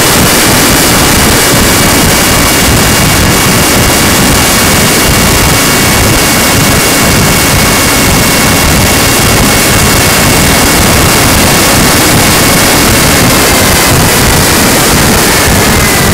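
RadJet RC plane's electric motor and propeller running flat out with a steady high whine over a loud rushing noise. The whine slides gradually down in pitch over the last few seconds.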